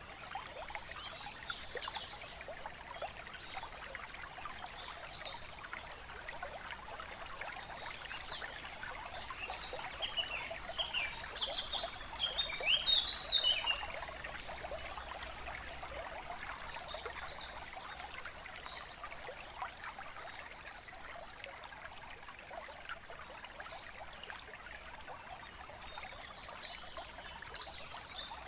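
Steady trickle of running water, with birds chirping; a run of louder chirps comes around the middle.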